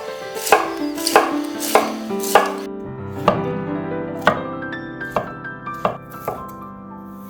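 Knife chopping on a cutting board in sharp, separate strokes, about one every half second at first and then more spaced out, over background music with held notes.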